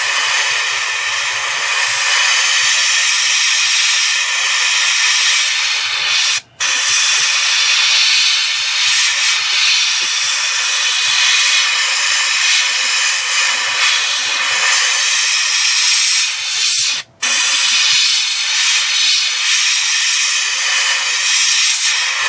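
Airbrush spraying chrome paint: a steady, loud hiss of air and paint that stops for a moment twice.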